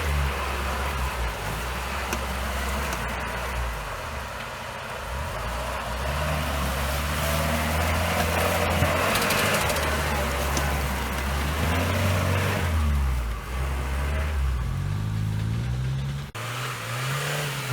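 Off-road vehicle engine working hard under load, revving up in pitch in several surges about two-thirds of the way through. It cuts abruptly near the end to a different engine note.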